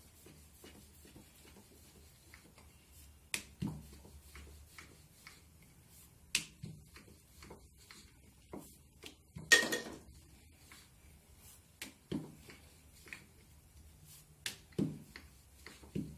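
Wooden rolling pin rolling out dough on a board, with scattered light clicks and knocks of the pin and hands against the board and a sharper knock about halfway through.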